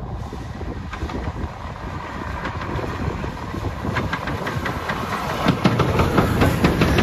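Train running on the rails, its wheels clicking over the rail joints, growing louder as it approaches.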